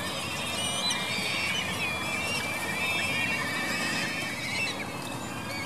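A flock of black-eared kites calling over one another: many high, quavering whistles and whinnying trills overlapping, over a steady background rush.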